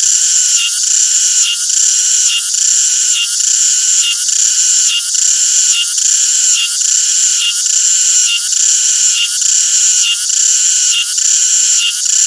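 Cicada singing: a loud, shrill, continuous buzz that pulses evenly about one and a half times a second.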